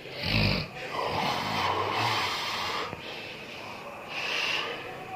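A person snoring: a short snort near the start, then a long snore of about two seconds, and a shorter, hissing breath about four seconds in.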